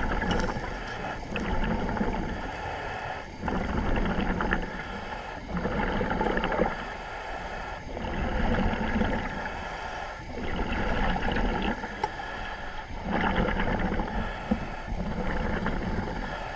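A surface-supplied diver's breathing heard over the dive radio: a rhythmic rush of air, about one breath every two to two and a half seconds.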